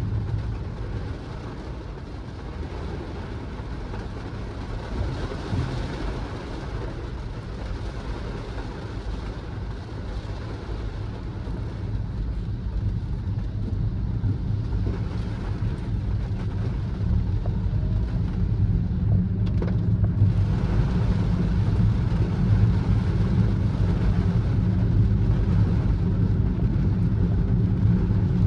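Car driving on a rain-wet road: a steady low engine and road rumble with tyre hiss, growing gradually louder from a few seconds in as the car gains speed.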